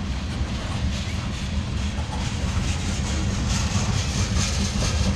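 Freight train cars rolling past on the rails: a steady rumble of steel wheels on track, with faint clicking in the second half.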